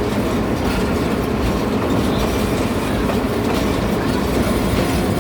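Small amusement-park train running steadily along its track, heard from aboard: a continuous rattle of the cars' wheels on the rails.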